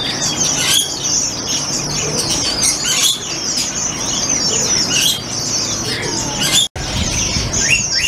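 Many caged birds chirping and twittering at once, a dense, continuous high chatter with a few louder calls standing out. The sound drops out for an instant about two-thirds of the way through.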